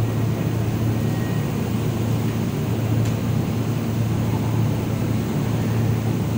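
Steady low hum of a stationary Kintetsu 22000 series electric limited express train standing at the platform, its onboard equipment running, over station background noise.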